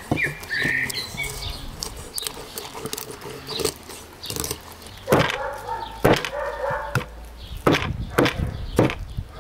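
A large knife cutting a big fish into steaks, knocking through the backbone onto the table again and again. A bird chirps at the start, and a short animal call sounds about five seconds in.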